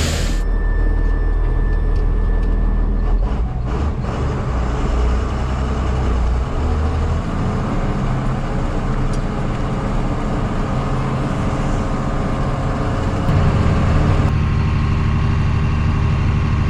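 Heavy diesel engine of farm machinery running steadily with a low drone. It grows louder in the low end about thirteen seconds in.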